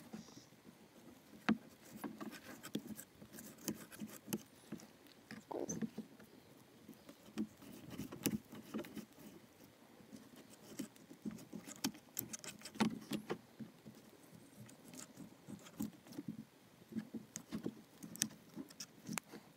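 Knife blade sliding and scraping along a plastic cutting board while skinning a flathead fillet, with irregular soft scrapes and sharp little ticks.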